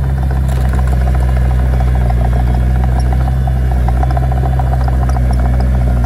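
Komatsu D21P small crawler bulldozer's diesel engine running steadily with a low throb while it pushes dirt with its blade, over a light rattle of its steel tracks.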